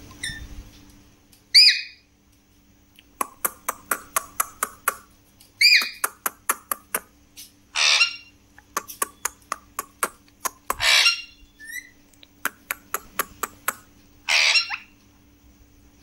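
Alexandrine parakeets squawking: five loud, harsh squawks, some with a sharp rise or bend in pitch, alternating with runs of rapid sharp clicks at about five a second.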